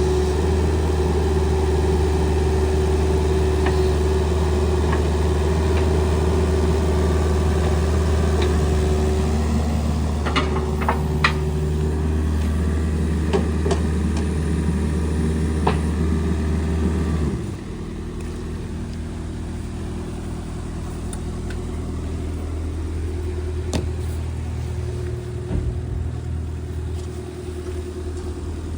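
Kubota KX027-4 mini excavator's diesel engine running steadily, with a few sharp clicks and knocks midway. About two-thirds of the way through, the engine note suddenly drops to quieter, lower running.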